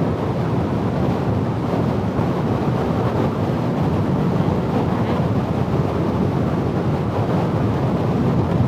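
Steady rush of wind on a microphone tucked inside a motorcycle helmet's cheek pad at highway speed, with the road noise of the ride beneath it.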